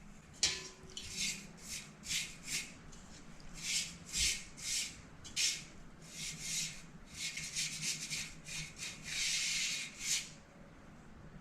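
Scrubbing the door's window-scraper channel clean with soapy water: a run of short swishing rubbing strokes, a little under two a second, then a longer continuous rub near the end.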